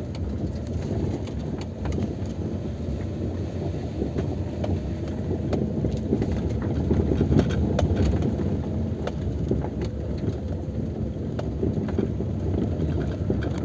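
Car driving slowly over a rough dirt track, heard from inside the cabin: a steady low engine and tyre rumble with scattered light clicks and knocks from the uneven, stony surface.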